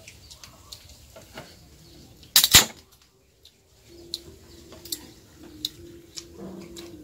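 Aluminium beer can pulled open: a sharp pop and a short hiss about two and a half seconds in. Light clinks of cutlery and dishes follow.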